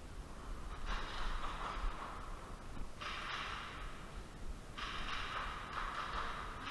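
A person breathing hard close to the microphone: three long, hissy breaths, starting about one, three and five seconds in.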